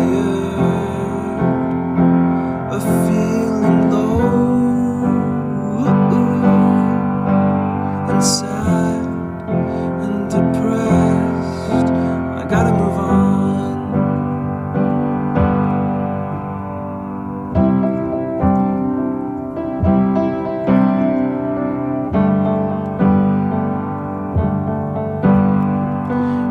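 Background music: an instrumental stretch of a pop song, led by piano, with steady held chords.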